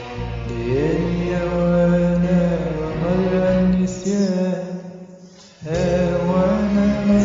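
A man singing a slow Arabic ballad. He holds long notes, with a smooth upward slide near the start, and breaks off for about a second and a half before the next phrase.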